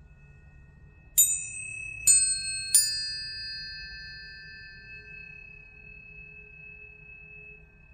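Three planetary tuning forks struck one after another, less than a second apart, each with a bright attack. Their steady pure tones of different pitches ring together and slowly fade.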